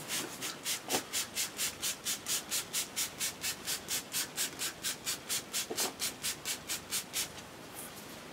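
Hand trigger spray bottle squirting water in quick repeated pumps, about four hissing sprays a second, stopping near the end. The water is soaking the softened, mouldering larch deadwood until it is saturated, before a wood stabilizer goes on.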